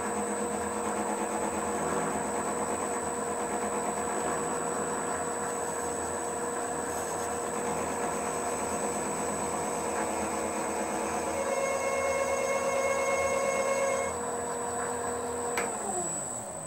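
A small metal lathe runs steadily with a high whine while the tool skims the burrs off a knurled dial ring. Near the end there is a click and the motor winds down, its pitch falling.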